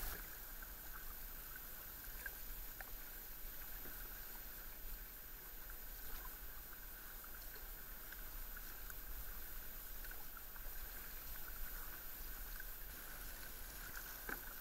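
Kayak paddles dipping and pulling through calm sea water, faint splashes and drips under a steady hiss.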